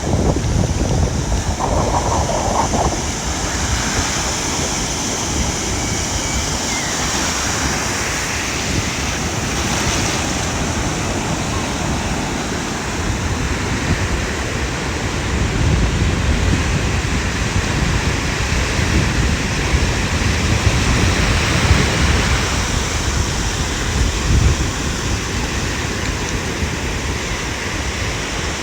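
Ocean surf breaking and washing on a beach in a steady, continuous roar of water, swelling louder a few times near the end. Wind buffets the microphone with a low rumble underneath.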